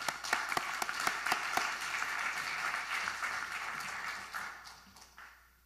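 Audience applauding, a dense patter of clapping that dies away about four to five seconds in, with one last clap near the end.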